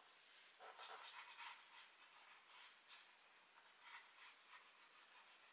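Faint scratching of a pencil drawing short marks on a bamboo glued-wood board, in several brief strokes.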